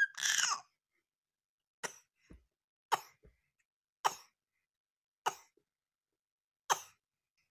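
A baby coughing: a brief voice sound at the start, then five short, sharp coughs spaced about a second apart.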